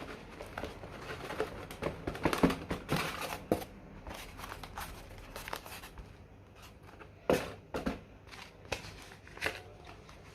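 Irregular handling noises: clicks and crinkling rustles, busiest in the first few seconds, then a few sharper knocks later on.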